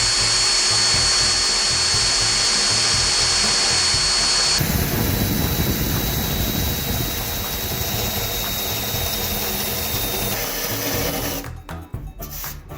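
Power drill spinning a 2-inch 80-grit sanding disc at speed, a steady high whine. About four and a half seconds in, the sound turns into a coarser grinding as the disc works the cured fiberglass lap down flush. It stops shortly before the end.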